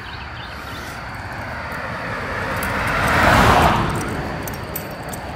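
A car passing by, its noise growing louder to a peak about three and a half seconds in and then fading away.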